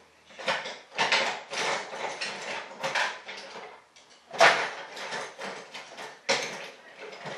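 Irregular workbench handling noises: a dense run of short scrapes, rattles and knocks from parts and tools being moved about, with one sharper knock about four and a half seconds in.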